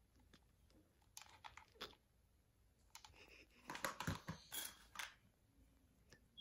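Faint clicks and taps of hands handling a cardboard panel and a hot glue gun. The loudest cluster comes about four seconds in, as the glue gun is set down on the table.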